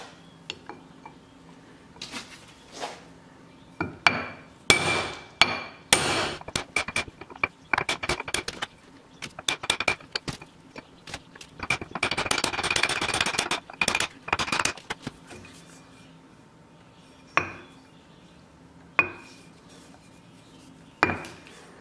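Hammer tapping a driver to seat a sealed ball bearing into a machined aluminium adapter housing. Sharp knocks with a brief metallic ring come one by one, then a quick run of light taps around the middle, then a few single taps near the end.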